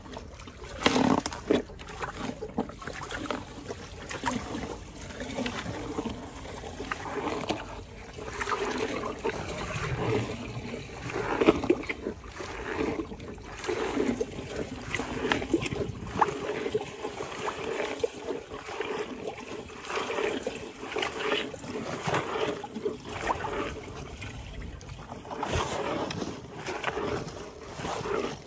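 Hippopotamus chewing a mouthful of cauliflower: irregular crunching and wet mouth noises, with water sloshing and dripping around its jaws.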